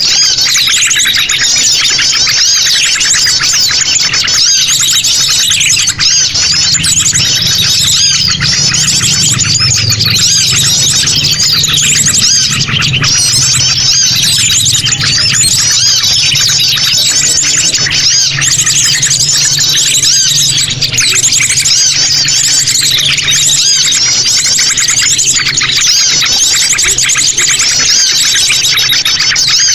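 Noisy, continuous chatter of sogon birds calling over one another: dense rapid chirps and short rising and falling whistles with no pause. A steady low hum runs underneath.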